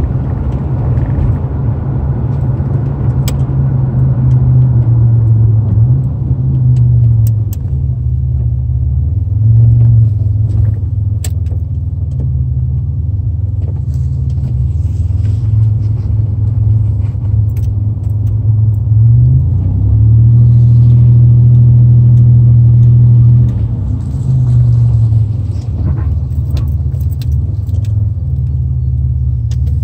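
Car engine running at low speed, heard from inside the cabin as a loud, low hum. Its pitch steps up and down with the revs, rising about two-thirds of the way through and holding before dropping back, with a few faint clicks.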